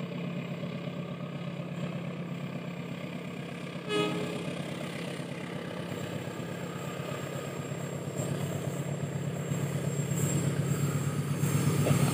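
CC 203 diesel-electric locomotive hauling a train up the grade toward the listener, its low engine drone growing gradually louder. A brief horn toot comes about four seconds in.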